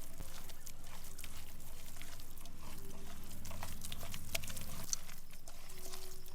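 A cow lowing in one long, low call that stops about five seconds in, with small wet clicks and taps throughout.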